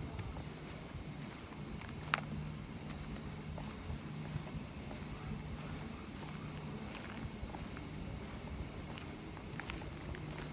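Steady high-pitched chirring of insects, with soft footsteps of a person walking on asphalt. A low steady hum comes and goes, and there is a single sharp click about two seconds in.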